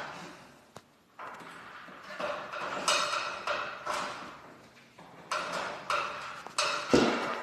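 Irregular metallic clanks and knocks, with short ringing after each, from steel winding bars being worked in the winding cone of a garage door torsion spring as its tension is let off. The loudest knock comes near the end.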